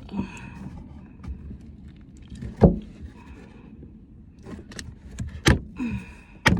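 Brittle, sun-damaged plastic rear speaker cover being pried and ripped up by hand: scratchy crackling and scraping broken by several sharp snaps and knocks, the loudest about two and a half seconds in and two more near the end.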